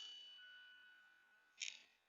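The tail of a PCP air rifle shot fading out with a faint metallic ring, then a faint short high click about a second and a half in.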